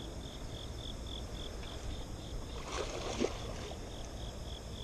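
An insect chirping steadily, about three or four short high chirps a second, over a low steady outdoor background noise, with a faint knock about three seconds in.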